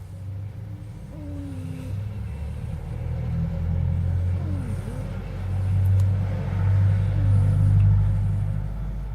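Puppy snoring: a low snore that swells and fades over a few seconds at a time, with a faint whistle rising and falling on some breaths.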